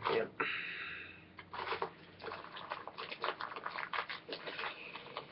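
A man's mouth and breath noises: two sharp breaths right at the start, then a run of small wet clicks and smacks from his lips.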